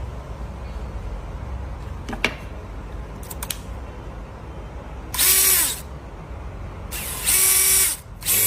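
Power tool motor run in three short bursts, each a whining buzz that spins up and stops. The second burst is the longest. Before the bursts there are a few light clicks over a low hum.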